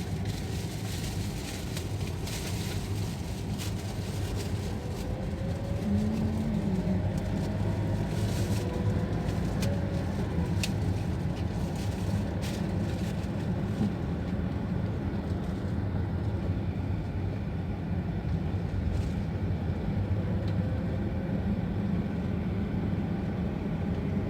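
Steady motor-vehicle noise, a continuous low engine and road rumble from a car.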